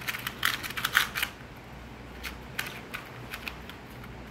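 Crinkling and rustling of paper and packaging being handled, dense for about the first second and then stopping, followed by a few faint light clicks.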